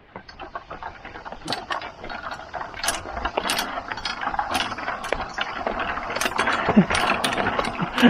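Footsteps knocking on the wooden planks of a canopy suspension bridge, with the harness's metal clips clicking and clinking against the steel safety cable: irregular sharp knocks and clicks, several a second, getting busier toward the end.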